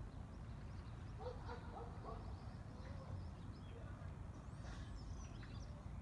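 Outdoor ambience: a steady low rumble, with a short run of quick calls about a second in and thin, high bird chirps near the end.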